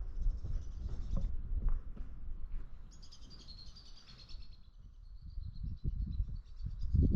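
A small songbird singing short, rapid trilled phrases, several in a row, over a continuous low rumbling noise.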